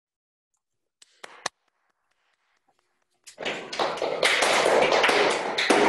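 A couple of faint clicks, then about three seconds in, hands start clapping loudly and keep on, heard through a video call's audio.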